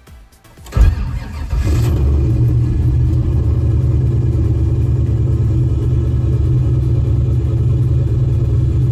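An LS-swapped V8 is cranked over by its starter for about a second and catches about a second and a half in. It then settles into a steady, cold fast idle at around 1,180 rpm.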